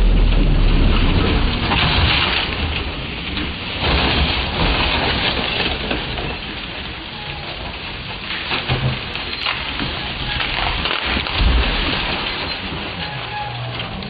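Rally car going off a gravel road and rolling over into the roadside bank, heard as a dense rushing noise with louder surges about two, four and eleven seconds in.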